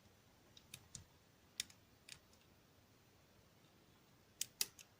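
Sparse, faint metallic clicks of a lock pick and tension tool working the pins of a Dom ix Saturn dimple lock. A few quiet ticks come in the first two seconds, then a quick cluster of sharper clicks near the end as the lock is picked open.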